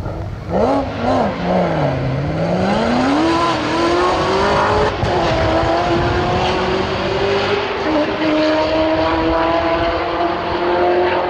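Chevrolet C7 Corvette V8 revved twice, then pulling hard through the gears: the pitch climbs steadily, drops at upshifts about five and eight seconds in, then holds nearly level.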